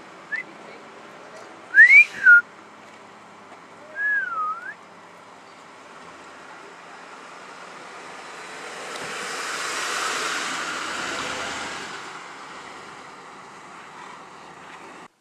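A person whistling: a short rising whistle, then a loud wolf whistle that rises and falls about two seconds in, and a wavering whistle about four seconds in. A few seconds later a rushing noise swells and fades.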